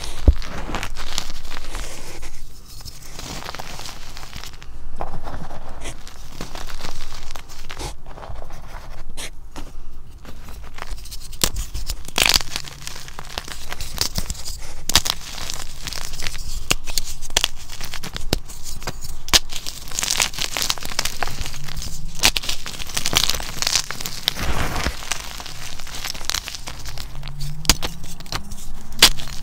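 Hands crushing and crumbling blocks of gym chalk in a tub of chalk powder: dry crackling and crunching, with sharp cracks as a block breaks apart, again and again.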